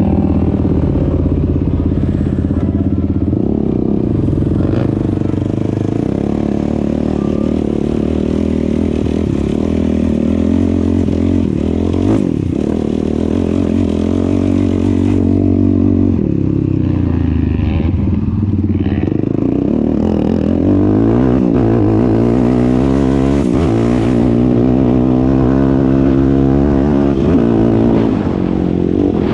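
Sport ATV engine running and revving, its pitch rising and falling over and over as the throttle is worked during riding.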